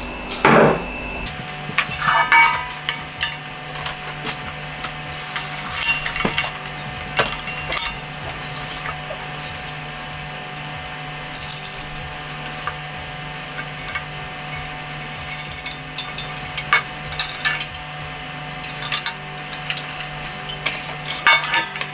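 Scattered metal clinks, taps and light scrapes from a cheap steel kettle barbecue being put together by hand: screws, legs and fittings knocking against the thin metal bowl, with screwdriver work near the end.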